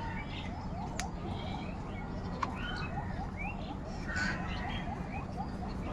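Crows calling among a chorus of other bird calls, with a fast run of short repeated chirps throughout, over a steady low rumble.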